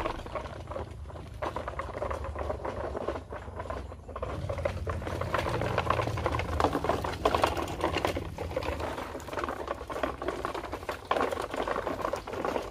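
Plastic toy truck and trailer rolling over dry dirt, twigs and leaves: a continuous crackling patter from the wheels with the plastic body rattling, a little louder from about four seconds in.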